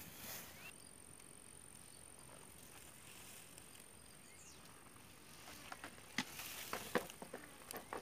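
Quiet outdoor background with a faint, steady high-pitched whine. From about five and a half seconds in come scattered clicks and rustles, like handling and movement in dry grass.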